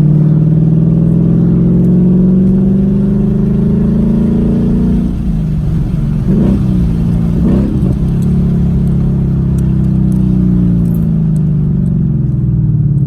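A stock 2015 Ford Mustang GT's 5.0 V8 under way, its engine note climbing in pitch for about five seconds, breaking off briefly around a gear change, then easing and falling slowly as the car slows.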